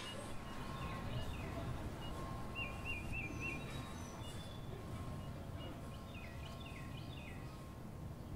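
Outdoor ambience: a steady low rumble with small birds chirping and trilling on and off, a short run of trills about three seconds in and a cluster of chirps near the end.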